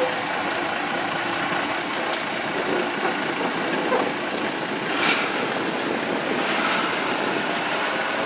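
GE 25-ton diesel switcher's engine running as the small locomotive rolls past, a steady rough drone, with a brief hiss about five seconds in.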